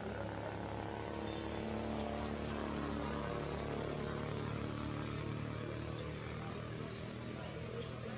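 Steady distant engine drone, swelling slightly two to three seconds in, with a few short high bird chirps in the second half.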